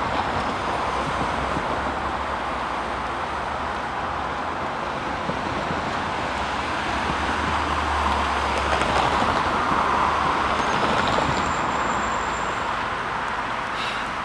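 West Coast Express commuter train pulling out: a steady diesel hum and the rumble of the rolling cars, growing louder midway and then easing off.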